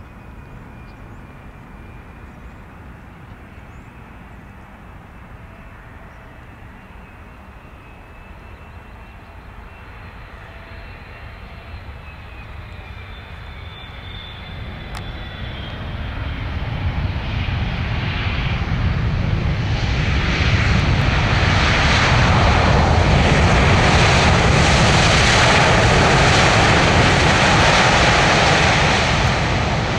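Boeing 777 freighter with twin GE90 jet engines on landing approach. Its engine noise swells from faint to loud from about halfway through, with a thin whistling whine coming in just before, and stays loud until easing slightly right at the end.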